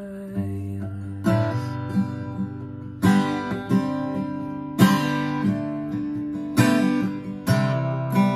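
Acoustic guitar played solo, chords picked and strummed with a low bass note entering about half a second in. Sharp strummed accents come roughly every two seconds, the chords ringing on between them.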